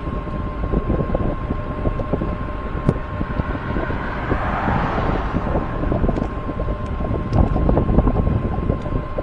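Wind buffeting the microphone on a moving electric bike, over road and tyre rumble with small knocks from bumps. A thin steady tone runs underneath, and a broad swell of noise rises and fades about halfway through.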